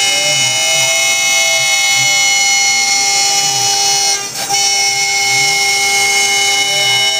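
Laguna IQ CNC router spindle with a 7/32-inch down-spiral carbide bit cutting through plywood, a steady high whine with many overtones. A tone rises and falls at the start and again near the end, and the sound dips briefly about four seconds in.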